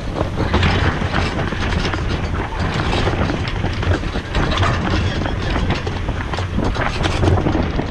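Wind buffeting the microphone and water rushing past the hull of a yacht sailing hard, with a cockpit sheet winch being cranked by hand in the second half, its ratchet clicking.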